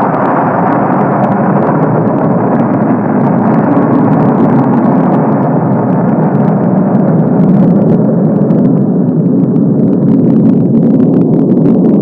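Steady, loud rumble of a nuclear explosion, with faint crackling that grows more frequent in the second half.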